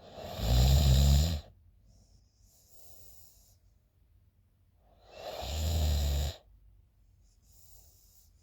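A sleeping girl snoring loudly: two snores about five seconds apart, each lasting about a second, with soft breaths in between.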